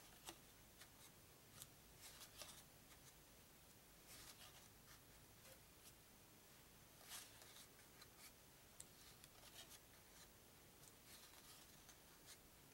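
Faint, irregular slides and taps of stiff trivia cards being lifted off a deck and set down on a wooden tabletop, card by card.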